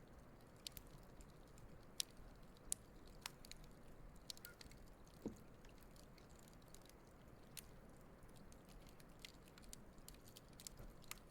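Wood campfire crackling faintly: scattered sharp pops and snaps over a low steady hiss. There is one brief low pitched sound a little past five seconds in.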